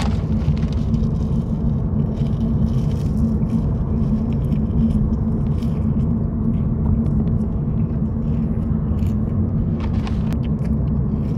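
Steady low road and engine rumble inside a moving car's cabin, with faint scattered clicks and rustles as a paper fries carton and a dip pot are handled.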